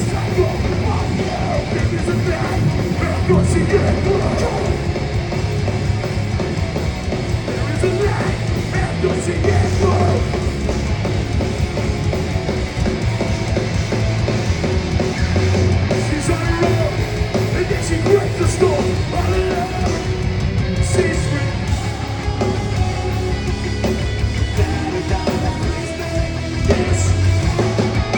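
Hardcore punk band playing live through a PA, recorded from the crowd: distorted guitars, bass and pounding drums with shouted vocals.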